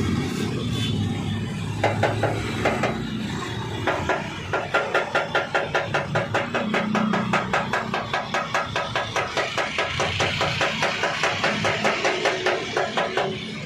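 Light hammer taps on radiator metal, quick and regular at about three or four taps a second from about four seconds in, with a few scattered taps before.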